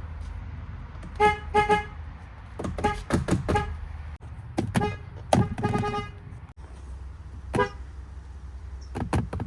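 Car horn of a Fiat Chrysler (FCA) vehicle, honked over and over in short beeps, some in quick pairs and triples, over a steady low rumble.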